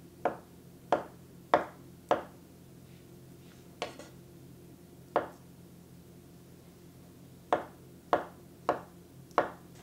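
Knife chopping soft avocado on a wooden cutting board: about ten sharp knocks of the blade striking the board, in irregular runs with a pause of a couple of seconds in the middle.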